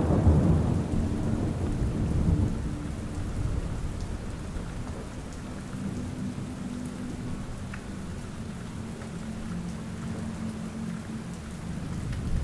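Rainstorm ambience: steady rain with a rolling thunder rumble at the start that dies away over the first few seconds. Near the end the rumble swells again. A few faint drops tick through the rain.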